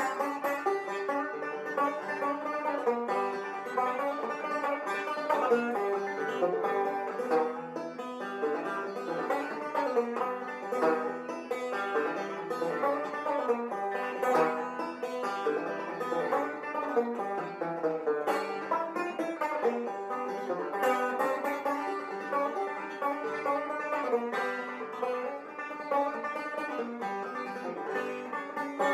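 Background banjo music with quickly picked notes.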